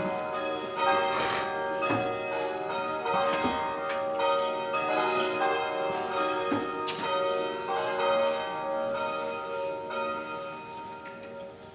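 Church bells ringing, their overlapping strikes each left to ring on, dying away near the end.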